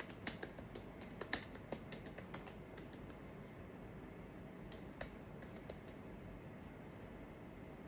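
Faint computer keyboard typing: a quick run of irregular keystrokes over the first three seconds, then a few scattered clicks about five seconds in.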